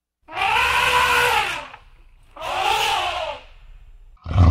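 Asian elephant trumpeting twice, each call about a second and a half long, rising then falling in pitch. A loud, low sound cuts in abruptly near the end.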